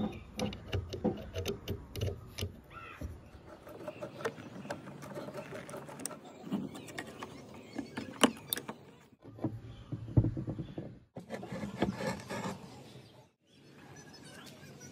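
Metal clinks, clicks and scrapes of a wrench and loose parts as a rusty vintage car starter motor is taken apart by hand, its terminal nut worked loose and the end plate lifted off. The clicks come irregularly, with one sharp click standing out about eight seconds in.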